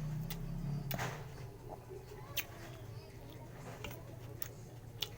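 Close-up eating sounds: chewing raw onion, tomato and green chili, with about six sharp crunches and mouth smacks scattered over a low hum that fades after the first second.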